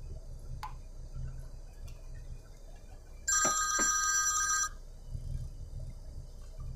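A mobile phone ringtone: one burst of steady electronic tones lasting about a second and a half, midway through, signalling an incoming call. Under it is the low, steady running of the truck's engine in the cab.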